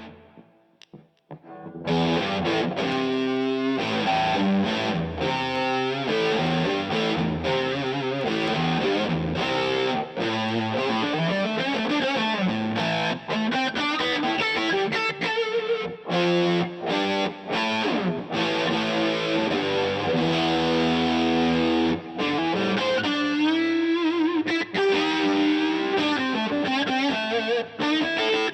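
Electric guitar played through a DVII guitar amplifier set for overdrive, with riffs and held chords. The playing stops briefly at the start and comes back in about two seconds in.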